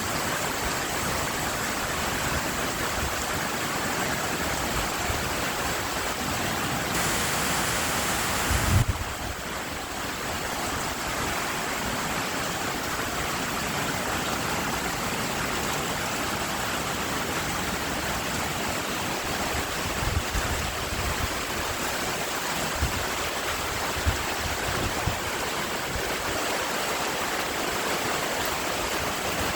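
Steady rushing water noise, an even hiss with no letup. About nine seconds in the sound shifts abruptly with a low thump, and a few soft low thumps come later.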